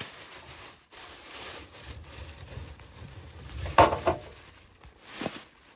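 Lumps of coal and plastic bags being handled: rustling and scraping, with a sharp clatter about two-thirds of the way in and another shorter one near the end.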